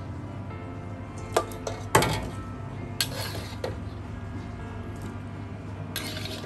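Metal spatula scraping and knocking against a steel wok while stirring meat in a thick curry sauce: sharp clinks about a second and a half and two seconds in (the louder one at two seconds), with scrapes around three seconds and again near the end. Soft background music underneath.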